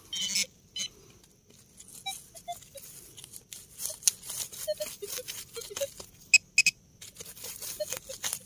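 Digging at a metal-detector target: soil and debris scraped and crunched in irregular short strokes, with a few brief high tones scattered among them.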